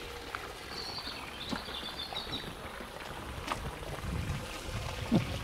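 Steady splashing and trickling of water from a garden pond's waterfall feature, with faint bird chirps a second or two in.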